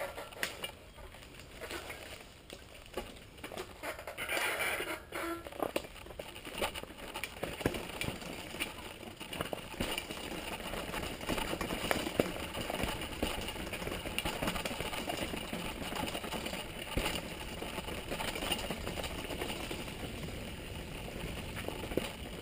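Mountain bike rattling over a rough, rocky downhill trail: a dense clatter of sharp knocks from the bike's frame, chain and wheels, busier and steadier after about six seconds.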